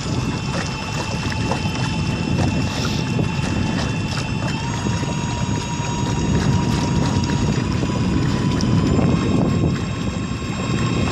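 Small boat's outboard motor running under way, a steady whine that steps up in pitch twice, about halfway through and near the end. Under it is a low rush of wind and water against the hull.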